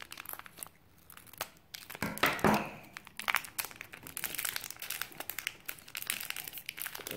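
A crinkly plastic blind-bag wrapper being crumpled and pulled open by hand. It crackles sparsely and quietly at first, then thickly from about two seconds in, loudest just after that.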